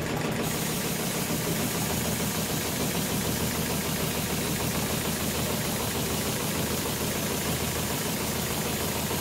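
HighTex GLK700-5030 heavy-duty programmable pattern sewing machine running steadily, stitching a 300 mm wide webbing lifting sling with thick thread as its clamp frame moves the webbing under the needle.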